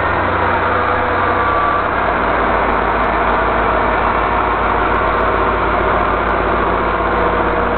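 Caltrain diesel locomotive's engine running with a steady low drone while the train's bilevel passenger cars roll past; the low hum grows stronger about two seconds in.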